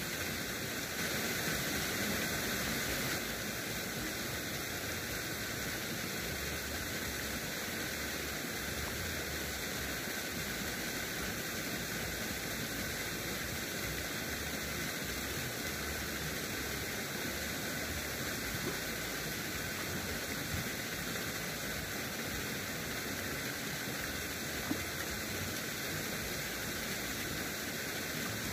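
Steady, even rushing hiss with faint steady high tones running through it, and no distinct events.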